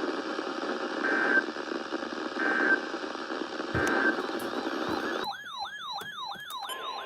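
Static-laden weather radio audio with three short, buzzy data bursts of an Emergency Alert System SAME header, about a second and a half apart. About five seconds in the hiss cuts out and an electronic alert tone takes over, a siren-like sweep falling in pitch over and over, about two and a half times a second.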